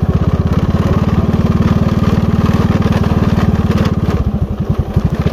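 Motorcycle engine running steadily, its rapid exhaust pulses continuous, easing off slightly about four seconds in.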